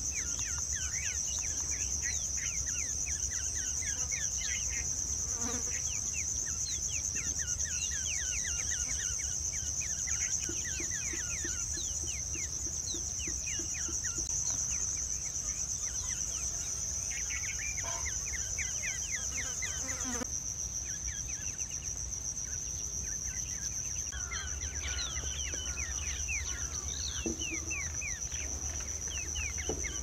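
A steady, high-pitched insect drone, with bird calls over it: many short falling notes in quick runs, coming and going. A low hum lies underneath.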